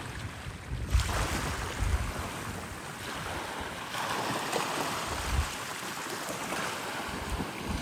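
Wind buffeting the microphone over the steady wash of sea waves on the shore, with low rumbling gusts in the first couple of seconds and again near the middle.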